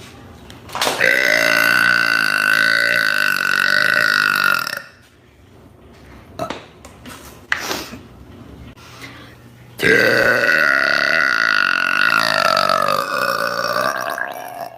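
A woman letting out two long, loud burps, each lasting about four seconds, the second coming about five seconds after the first ends.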